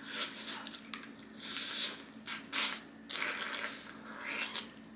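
Close-up eating sounds of a person biting and chewing lobster held in the hands, coming as about half a dozen short, irregular mouth noises.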